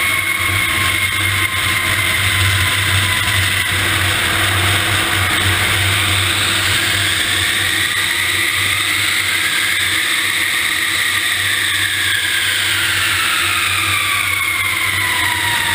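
Landing roll of a large jet aircraft heard from beside its landing gear: a loud, steady rush of tyre and wind noise under a low hum, with jet engine whine that rises in pitch and then falls over the second half.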